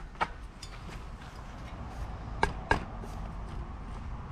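A few sharp clicks and knocks as a mountain bike's rear wheel is fitted back into the frame: one just after the start, then two close together about halfway through, over a faint low hum.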